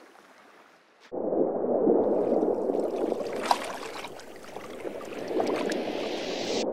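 Underwater ambience: a muffled, steady rush of water with scattered crackles and bubble pops, coming in suddenly about a second in after a near-silent moment.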